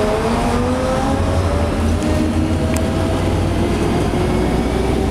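Bus engine and transmission heard from inside the cabin while the bus gets moving: a low rumble under a whine that climbs in pitch, drops back about three seconds in as it shifts gear, and climbs again.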